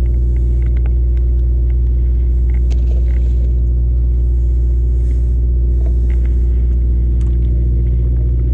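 Sportfishing boat's engine running steadily, a constant low rumble, with a few faint clicks over it.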